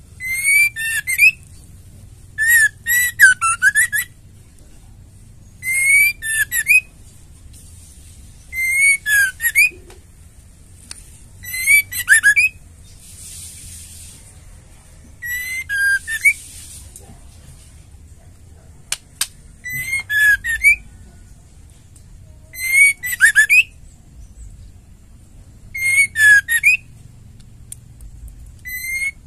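Female white-rumped shama calling in short bursts of sharp, whistled notes, about nine phrases, one every three seconds or so.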